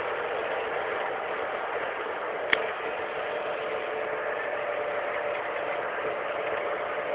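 Fiat Punto ELX driving fast, heard from inside the cabin: a steady engine drone under even wind and road noise. A single sharp click about two and a half seconds in.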